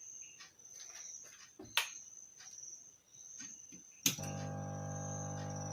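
A click about four seconds in, then a hot air rework gun's blower running with a steady, unchanging hum. Before it, a few light taps, and a cricket chirping with a high pulsing note throughout.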